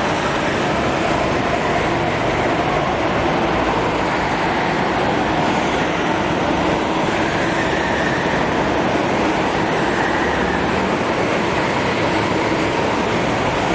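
Several go-kart engines running together in an indoor hall: a steady drone with engine tones that drift up and down as the karts lap the track.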